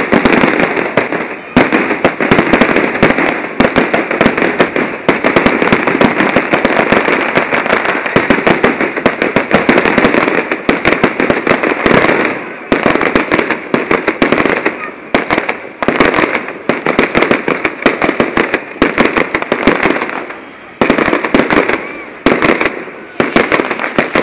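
Fireworks display: a dense, continuous barrage of bangs and crackles, with two brief lulls, one about halfway through and one near the end.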